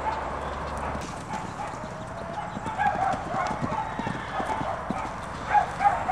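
Hoofbeats of loose Lipizzan horses cantering on a sand arena, in an uneven rhythm that grows louder in the second half as they pass close by.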